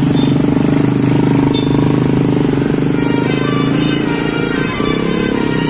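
Medium-size tour bus's diesel engine running loudly close by as it passes. About halfway through, a faint musical multi-tone telolet horn tune, stepping from note to note, starts over the engine.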